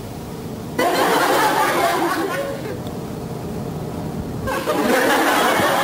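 A group of people laughing and chattering together, breaking out about a second in, easing off in the middle and swelling again near the end, as a boy pulls a funny face.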